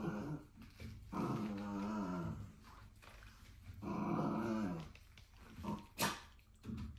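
Corgi puppy growling in three drawn-out growls while biting and tugging at an exercise bike's pedal. A sharp click comes near the end.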